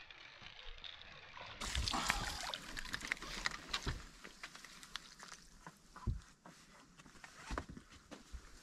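Small bass splashing at the surface as it is reeled in and lifted from the water, with scattered clicks and rattles from the rod, reel and handling.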